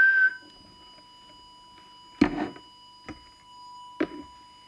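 A whistled note with hiss ends just after the start. A faint steady 1 kHz test tone from an audio oscillator follows. Sharp knocks come about two seconds in (the loudest) and about four seconds in.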